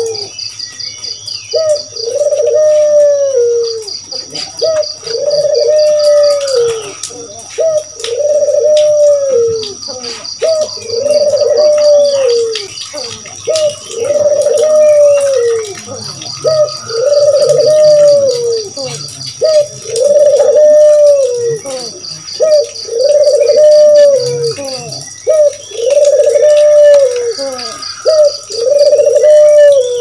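Barbary dove (burung puter) cooing: a long, arched coo repeated about every two seconds, with small birds chirping faintly behind it.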